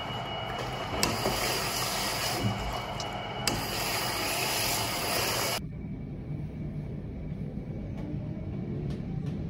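Background noise, a steady hiss and rumble with a few sharp clicks. About five and a half seconds in it changes abruptly to a quieter, duller noise.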